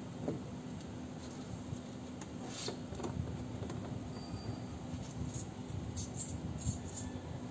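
Scattered light clicks and knocks of hands handling car horn parts and wiring, over a steady low hum.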